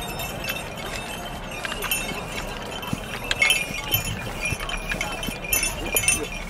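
Belgian draft horse walking in harness: the chains and metal fittings of its bridle and harness jingle and clink, with soft hoofbeats on grass.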